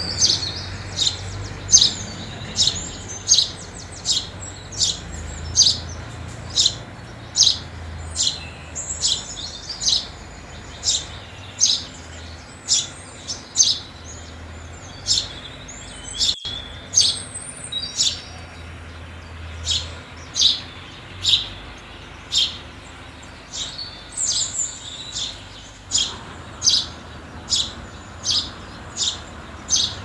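House sparrows chirping: a steady run of short, sharp cheeps, close to two a second, with looser twittering chirps between them.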